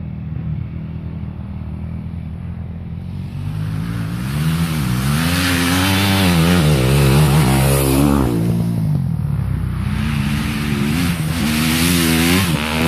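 Dirt bike engines revving, the pitch rising and falling with the throttle as the riders come up the dirt hill climb. The sound grows louder from about four seconds in as the bikes approach.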